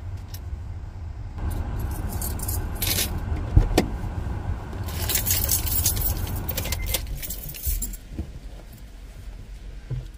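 Metallic jingling and rattling handling noises over the steady low hum of an idling car engine, with a sharp thump about three and a half seconds in.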